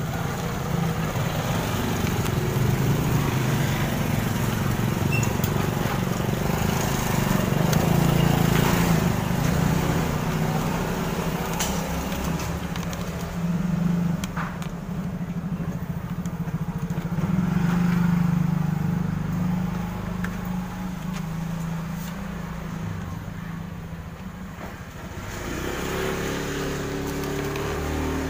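An engine running steadily with a low hum, its level swelling and easing.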